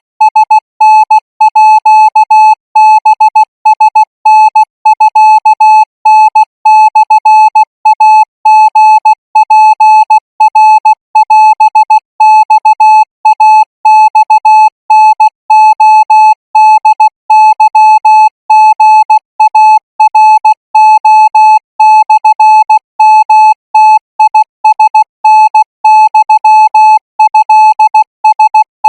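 Morse code practice tone: a single mid-pitched beep keyed on and off in short dots and longer dashes, sent continuously at 20 words per minute.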